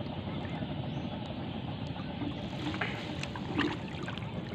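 Water sloshing and splashing around a banana-trunk raft on floodwater, with a few small knocks or splashes, the clearest a little after the middle.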